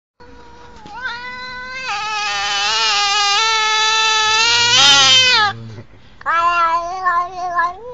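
Domestic cat meowing: one long drawn-out call of about five seconds that grows louder, then a shorter call that wavers in pitch.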